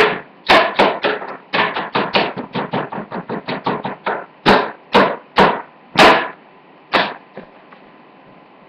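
Sunglasses knocked and scraped hard against a hard surface to test them. A quick run of sharp knocks, about five a second, gives way to slower single strikes, the last about seven seconds in.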